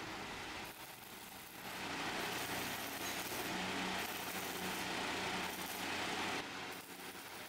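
Stick arc welding on an iron railing grill: the electrode arc crackles and hisses, starting about two seconds in and running in spells with short breaks until near the end, over a steady low hum.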